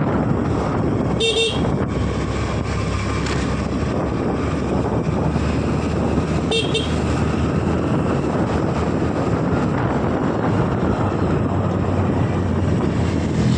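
Scooter ride with a steady rush of wind and engine and road noise. Two short horn toots, one about a second in and another about six and a half seconds in.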